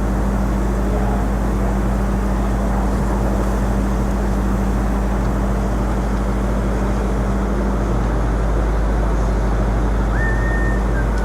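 Steady city street noise: a low rumble of traffic with a steady machine hum that drops out about eight seconds in. A brief high whine comes near the end.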